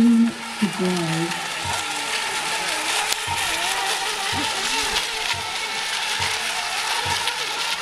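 Several ECO Mini Expert electric RC racing boats running together on the water, their motors giving a layered high whine that wavers in pitch as the boats turn and pass.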